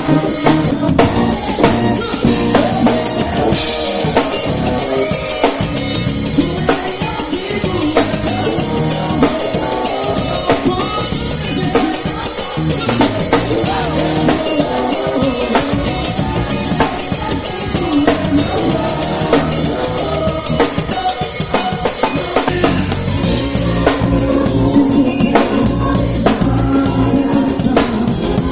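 Band music with a full drum kit to the fore, kick drum, snare and rimshots over a continuous backing.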